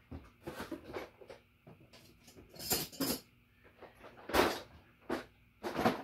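Irregular clattering and rustling of tools and parts being handled, several separate knocks with the loudest a little over four seconds in.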